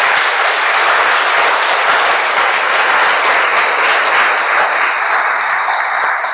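Audience applauding: a dense, steady clapping that begins to die down near the end.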